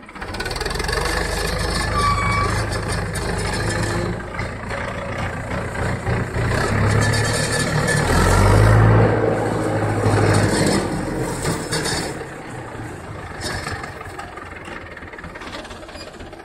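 HMT 7511 tractor's diesel engine running as it pulls a loaded grain trailer along a dirt track. It grows loudest about halfway through as it comes close and passes, then fades as it moves off.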